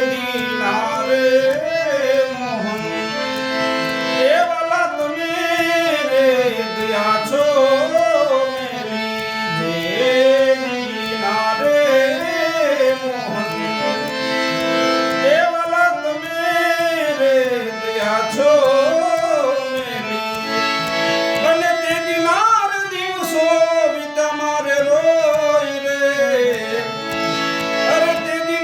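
Indian devotional bhajan music: a gliding, ornamented lead melody over sustained reed-organ chords with tabla.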